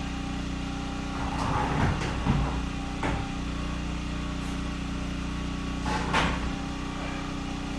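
Small portable generator running with a steady hum. A few light knocks and clicks of lumber and tools being handled sound over it, about two seconds in, at three seconds and near six seconds.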